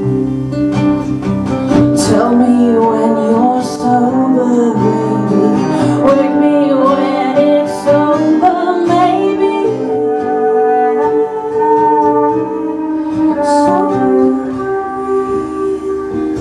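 Live acoustic rock band playing: acoustic guitar under a wavering, gliding melody line, with a few sharp bright accents.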